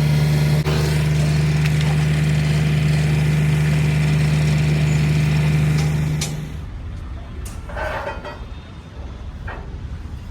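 A large engine runs with a steady, even drone, then stops abruptly about six seconds in, leaving softer scattered knocks.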